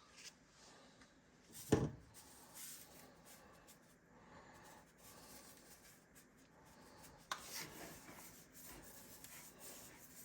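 Faint rubbing and handling noises as Italian seasoning is worked onto a raw sirloin tip roast in a bowl, with one sharp knock about two seconds in.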